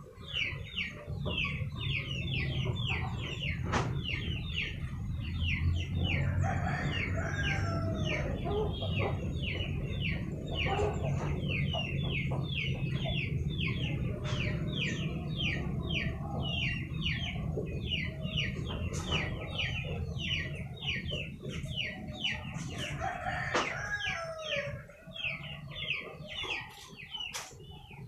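Chickens calling: an unbroken run of short, high, falling peeps, about three a second, with now and then a lower cluck or call.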